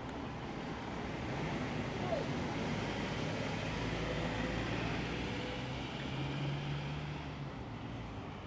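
A motor vehicle passing on a road, its sound swelling, holding for several seconds and fading near the end, with a low hum in its later part.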